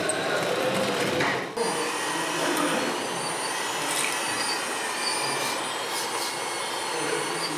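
Radio-controlled scale model trucks running, giving a steady whirring mechanical noise with a brief dip about a second and a half in.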